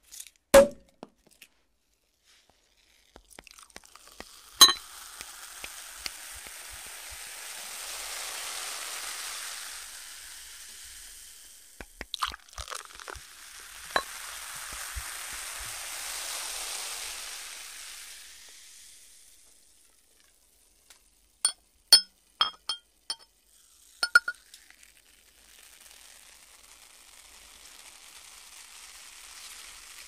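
Champagne fizzing as it is poured into glass flutes, in two long hissing swells that build and fade. A loud pop comes just after the start. Glasses clink and ring several times in a quick cluster about two-thirds of the way through, and fainter fizzing follows.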